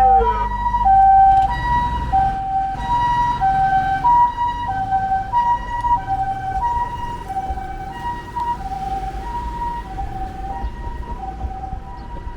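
Japanese ambulance's electronic two-tone "pee-poh" siren, alternating a higher and a lower tone a little more than once a second, slowly fading as it moves away. A low vehicle rumble is heard in the first couple of seconds.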